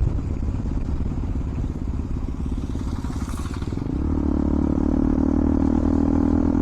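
KTM Duke 200 single-cylinder engine running through an Akrapovic exhaust without a dB killer while riding, mixed with heavy wind buffeting on the mic. About four seconds in, the engine settles into a steady, even drone.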